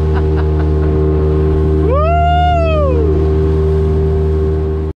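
Outboard motor of an open fishing boat running at steady cruising speed, a constant droning hum. About two seconds in, a single drawn-out call rises and falls over it. The sound cuts off abruptly just before the end.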